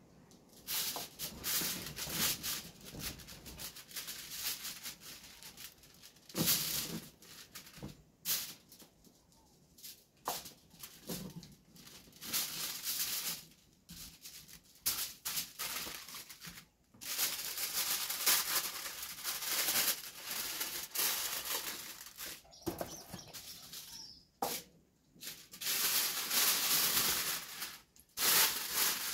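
Rustling and crinkling from hands working aluminium foil and dry seasoning around a fish: irregular bursts of dry, hissy rattle, some lasting a few seconds, with short pauses between.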